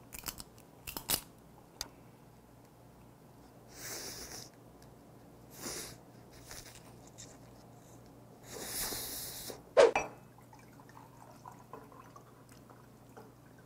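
Close eating sounds: chewing and sucking on crab and noodles, with two louder hissing slurps about four and nine seconds in and a sharp click near ten seconds.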